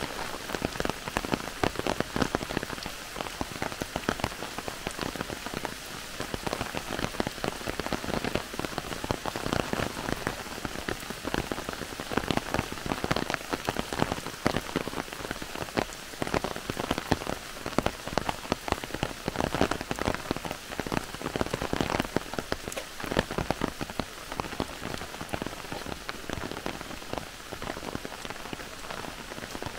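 Heavy rain falling through a forest, a steady dense patter of countless separate drops striking close by.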